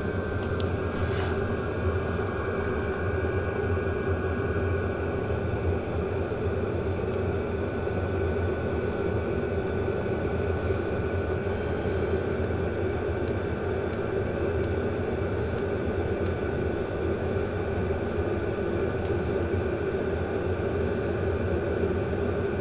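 12-volt WIPPRO diesel heater running at full output, its blower and burner making a steady whir with a faint high whine.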